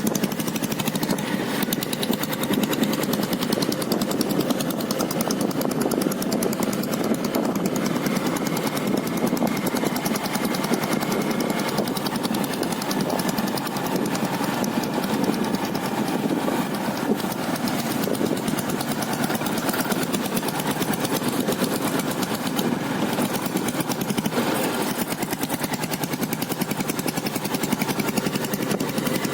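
Royal Enfield Taurus motorcycle's single-cylinder diesel engine running steadily with an even, unchanging beat.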